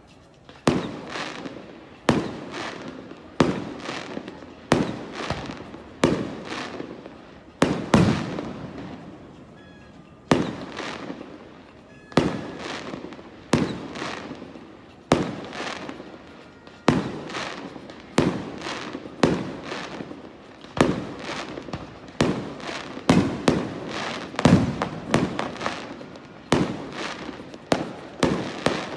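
Aerial fireworks bursting one after another, a sharp boom roughly every second with each echo trailing off, the bursts coming faster near the end.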